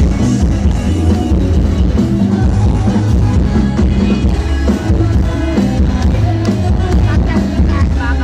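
Loud live band music with a heavy, steady bass and drum kit, mostly instrumental.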